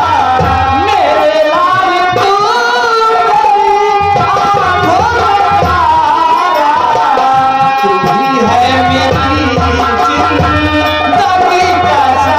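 Live folk stage music: a wavering, bending melody line over hand drums, with the drumming dropping out and coming back a few times.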